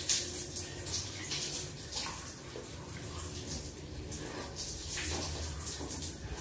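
Shower running: a steady spray of water with irregular splashes.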